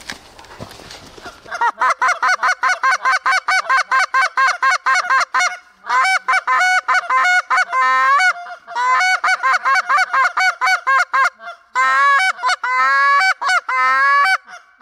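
Canada goose call blown close by: rapid clucks and honks, about four or five a second, in runs broken by short pauses. The hunter is calling to work a single Canada goose that is circling the spread.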